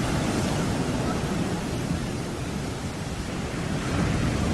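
Sea surf washing and churning, a steady rush of water with wind buffeting the microphone; it eases a little midway and builds again near the end.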